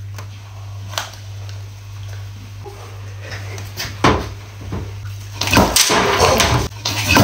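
Knocks and handling on a tabletop over a steady low hum, with a sharp thump about four seconds in. From about five and a half seconds there is a loud run of clattering and rushing noise as the plastic cola bottle, its balloon swollen with foam, tips over onto the table.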